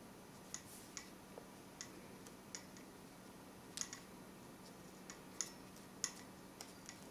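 Faint, irregular light clicks and ticks, about a dozen, from hands handling 3 mm macramé cord while tying a square knot.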